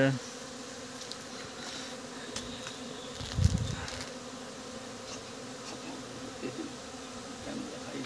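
A honeybee swarm humming steadily as it flies around and moves into a bait hive. A brief low thump comes about three and a half seconds in.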